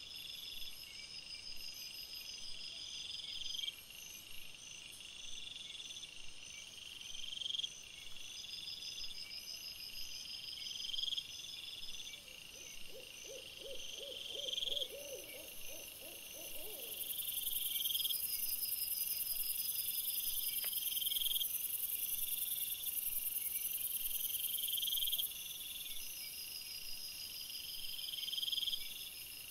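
Crickets chirping in a steady repeating rhythm, with a faster high pulsing song above them. About halfway through, a low, quavering call of rapid pulses lasts a few seconds, and then a steady high hiss joins in for several seconds.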